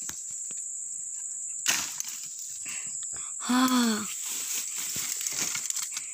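Dry branches and brush being chopped and broken: repeated sharp cracks and snaps of wood, the loudest about a second and a half in. A short vocal call rises and falls about three and a half seconds in, over a steady high insect buzz.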